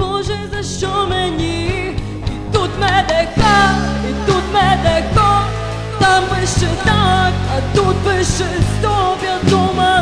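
Background music: a pop song with a steady bass line and a bending lead melody, in a stretch with no lyrics heard.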